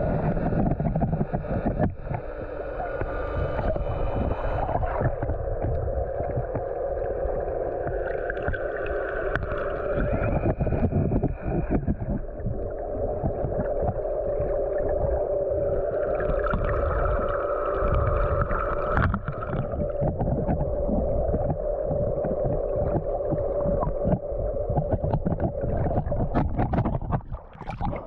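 Underwater sound with a steady droning hum and a wavering whine that swells twice, like a boat motor carried through the water, over a low rumble of water on the microphone. Near the end the sound dips briefly and gives way to splashing.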